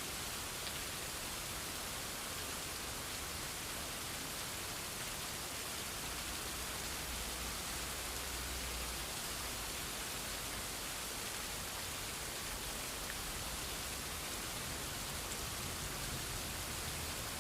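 Steady rainfall, an even hiss of drops with a few faint individual drop ticks.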